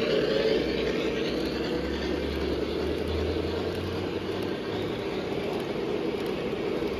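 Lionel O-gauge model train running on track: a steady whir and rumble of motor and wheels, with a low hum that swells for a couple of seconds in the middle.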